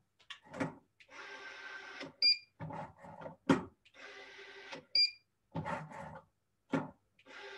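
Mountz ECT transducerised electric screwdriver running down screws: three runs of about a second each, the last starting near the end. Each of the first two runs is followed by a short controller beep that signals the fastening is OK, and small handling clicks and knocks fall between the runs.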